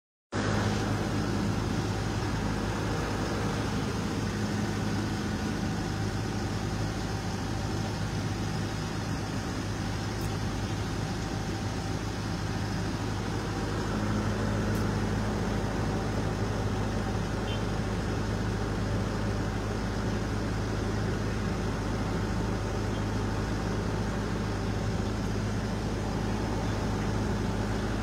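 Heavy diesel engines of long-reach excavators running steadily: a low, even drone that holds one pitch throughout.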